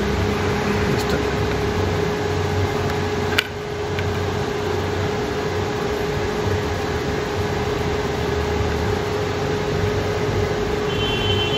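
A steady mechanical hum with a constant low tone running throughout, and one sharp click about three and a half seconds in.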